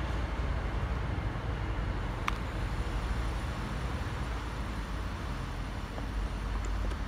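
Steady low rumble of a train on the line, with one faint short click about two seconds in.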